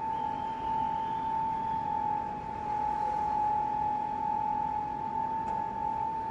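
Steelmaking plant machinery: a steady high-pitched whine held on one pitch over a continuous noisy industrial background.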